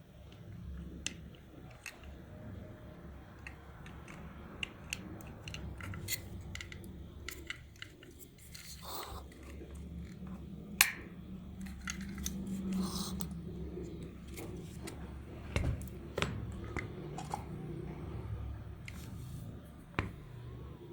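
Handwork on a small plastic toy: scattered sharp clicks and taps with short scrapes and rustles, over a faint low steady hum.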